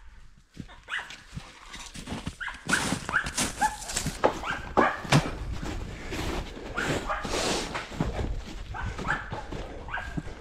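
A dog yelping and whining in short repeated calls, over the crunch of footsteps on snow and dry leaf litter.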